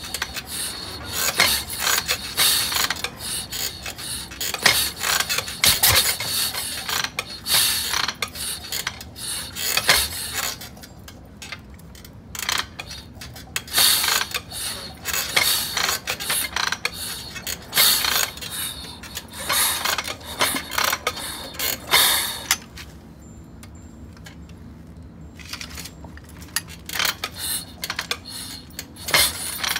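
Harley-Davidson Shovelhead V-twin on a rigid chopper being kick-started again and again. Each stomp on the kick pedal brings a short burst of mechanical clanking and ratcheting as the engine turns over, and it does not catch. The kicks come about every one to two seconds, with a break of about three seconds a little past two-thirds of the way through.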